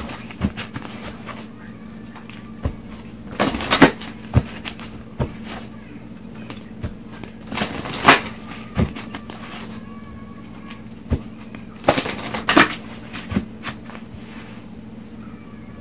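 Tarot cards being shuffled by hand: irregular soft riffles and sharp card taps, with louder snaps about four, eight and twelve seconds in.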